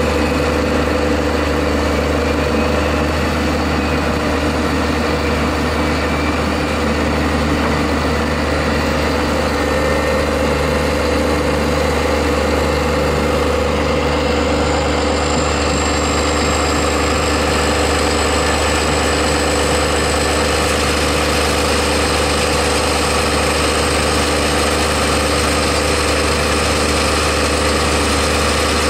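Tractor diesel engine running steadily at constant speed, its hum unchanging in pitch and loudness.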